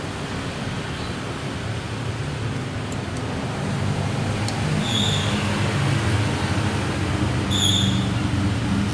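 Lakoni oil-less air compressor running with a steady hiss and a low hum that grows stronger about midway. Two short high-pitched squeaks come through, one a few seconds in and one near the end.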